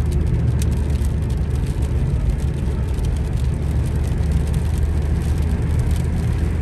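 Cabin noise of a 2019 Toyota Corolla GLi 1.3 cruising on a wet motorway: a steady low drone of engine and tyres, with a few faint, scattered ticks.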